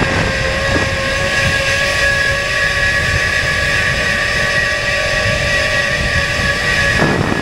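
A drone in flight, its propellers giving a steady multi-tone whine over a low rushing noise.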